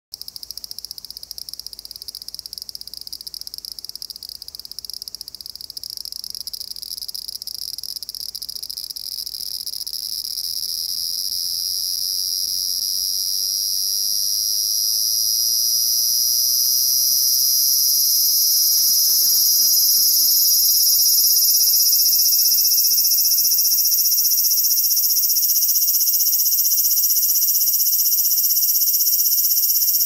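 A cicada singing: a high-pitched buzz that starts with a fine flutter and builds steadily louder over about twenty seconds into a loud, steady drone.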